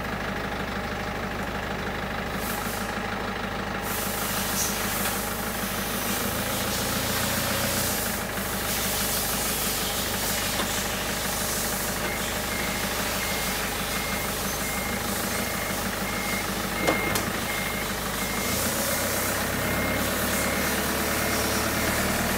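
An engine running steadily, joined about halfway through by an evenly repeating high-pitched beep like a vehicle's reversing alarm.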